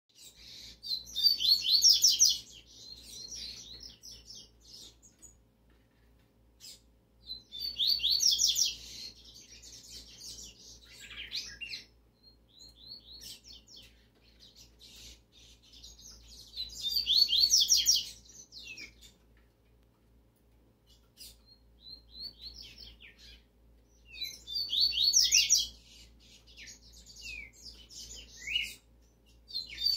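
Yellow-bellied seedeater (coleiro-baiano) singing: a fast, high, warbling song phrase every seven to eight seconds, five times, with short chirps and whistled notes between.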